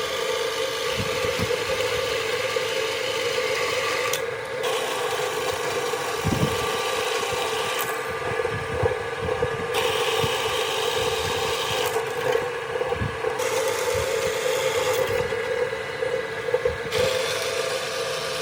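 The restored drill press's electric motor running with a steady hum, with scraping noise that starts and stops several times and scattered light knocks.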